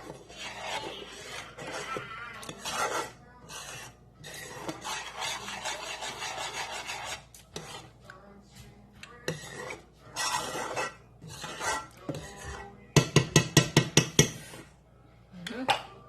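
A utensil scraping and rubbing around a pan while stirring a thick, nearly cooked condensed-milk yema mixture, in irregular strokes, with a quick run of about eight sharp, louder strokes near the end.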